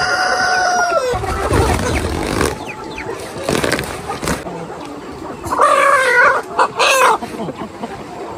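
Roosters crowing: one crow trails off about a second in and another loud crow comes in two parts about two-thirds of the way through, with hens clucking around them. Between the crows there is rustling and crinkling from the woven plastic feed sack being opened.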